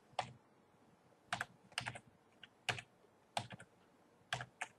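Typing on a computer keyboard: short, irregular clusters of keystrokes with brief pauses between them.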